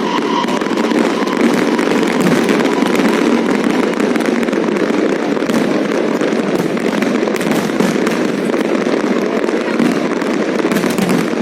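Aerial fireworks going off in a dense, continuous crackle of many small pops.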